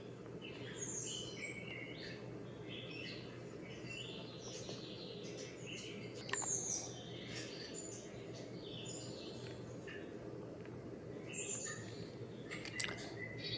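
Small birds chirping and twittering in many short, high calls over a steady low hum. There is a sharp click about six seconds in and another near the end.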